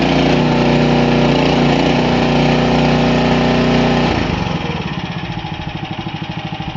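The 9 hp petrol engine of a Jansen RD-500 hydrostatic tracked mini dumper running at high revs, then throttled back about four seconds in to a lower, evenly pulsing idle.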